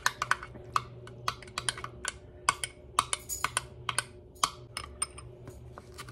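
Metal spoon clinking against the inside of a glass tumbler while stirring a thick mayonnaise-and-vinegar sauce: quick, irregular clicks, several a second.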